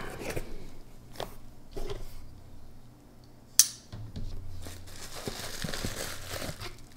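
Hands handling a cardboard shipping box: light scuffs and taps, a sharp snap about three and a half seconds in as the box is opened, then plastic bubble wrap crinkling as it is pulled out.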